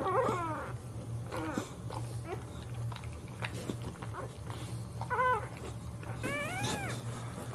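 Newborn boxer puppy crying in short, high, mewing squeaks, several times, with a longer cry near the end that rises and falls.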